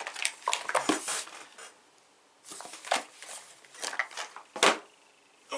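Board game boxes and packaging being handled on a table: irregular clacks, scrapes and rustles, with a sharp knock near the end.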